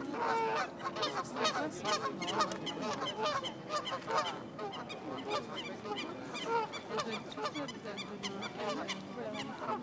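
Canada geese honking: many short calls overlapping, busiest in the first half and thinning out after about five seconds.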